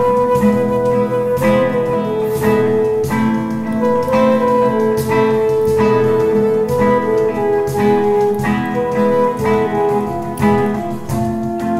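Instrumental passage: a flute plays a slow melody of long held notes over a nylon-string classical guitar and a cajón keeping a steady beat.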